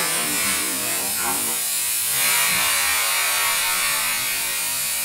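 CO2 cartridge on a toy truck venting its gas in a steady hiss as the jet keeps blowing.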